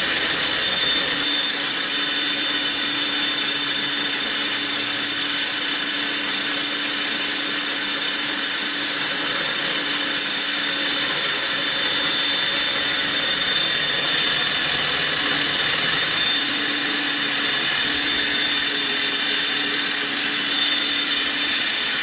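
BF20 CNC milling machine running steadily on its original spindle bearings, with a high whine over a mechanical hum and a lower tone that cuts in and out several times.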